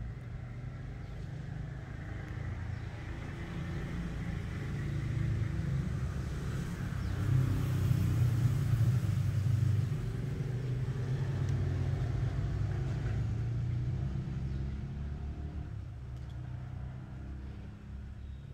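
A motor vehicle passing by: a low rumble that builds, is loudest about eight seconds in, then fades away.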